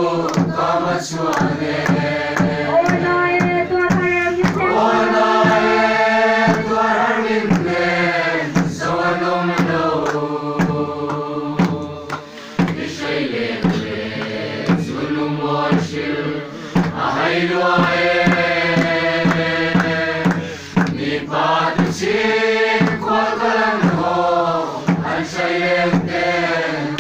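A large group singing a slow Mizo lengkhawm song together in long, held lines. A khuang drum beats steadily under the voices.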